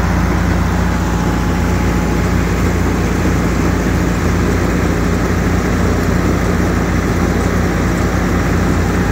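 Steady, loud running of a Case 2290 tractor driving a silage bagger through its PTO, with the bagger's rotor packing chopped sorghum-sudangrass fed from a forage wagon. It runs without letting up, the bagger taking the feed as fast as it comes.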